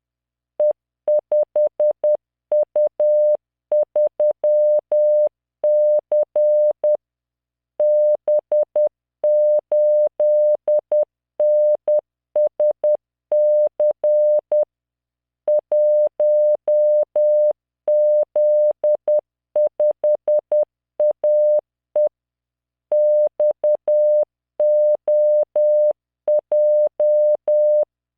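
Morse code practice tone at about 600 Hz, sent by computer at 10 words per minute as random five-character groups. The tone is keyed on and off in dots and dashes, with longer pauses between groups.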